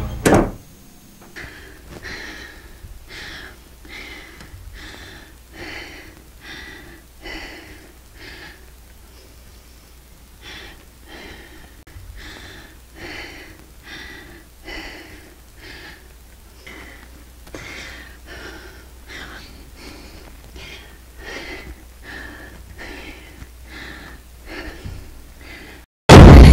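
A young woman panting in fear: quick, heavy breaths, about three every two seconds, keeping an even pace throughout.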